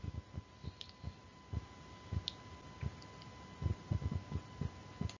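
Quiet background with irregular soft low clicks and thumps over faint hiss, and a faint steady high tone underneath.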